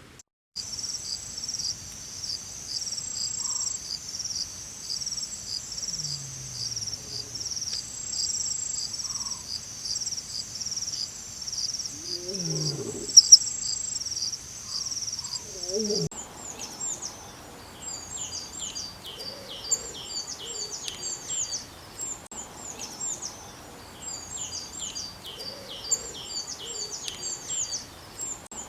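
Insects trill steadily in an even pulsing chorus, with a few low sliding calls from another animal. About halfway through, this changes to a bird singing rapid, repeated, falling chirps.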